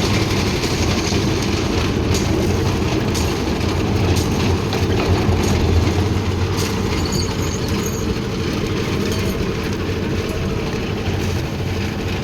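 Concrete mixer machine running: a steady engine drone with scattered clattering knocks every second or so.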